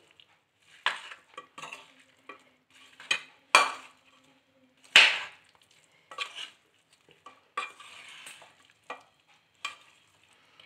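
A metal spoon stirring and scraping spice-coated chicken pieces in a steel kadai, mixing in the masala and garlic paste: irregular clinks and scrapes against the pan, the loudest about five seconds in.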